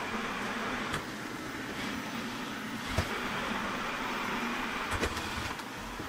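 360 S9 robot vacuum running, a steady hiss from its suction fan and brushes, with a couple of short sharp clicks about three and five seconds in.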